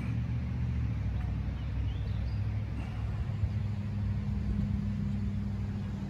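Low, steady rumble of a motor vehicle engine running somewhere close by, its hum growing a little stronger in the second half and easing off near the end.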